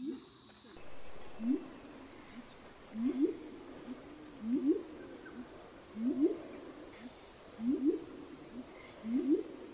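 Violaceous coucal calling: a repeated series of low notes, each sliding upward in pitch, mostly in pairs about every second and a half, with softer short notes between.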